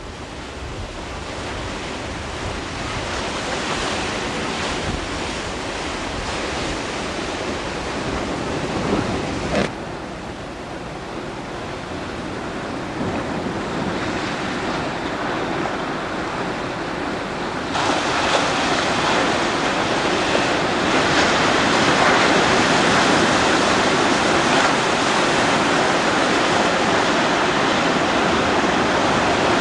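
Ocean surf washing in steadily, with wind buffeting the microphone. The surf grows louder over the first several seconds, drops off abruptly near ten seconds in, and jumps louder again about eighteen seconds in.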